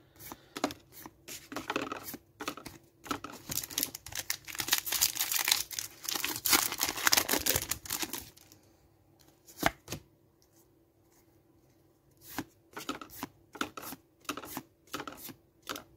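Foil booster-pack wrapper tearing open and crinkling for several seconds. Then, after a short lull, trading cards slide and flick as they are moved one behind another.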